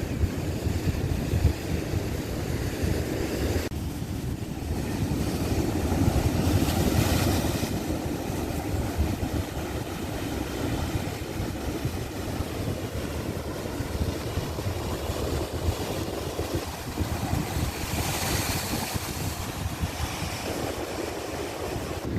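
Wind buffeting the microphone with a steady low rumble, over the wash of surf on a rocky shore; waves swell up louder twice, about a third of the way in and again near the end.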